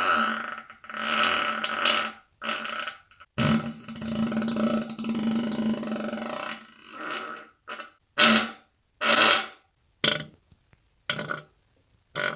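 A series of human farts: several buzzy blasts early on, then one long fart lasting several seconds, then shorter farts about once a second.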